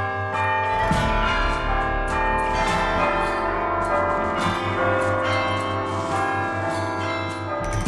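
Bells ringing, many overlapping notes that strike and hang on, like a peal of church bells.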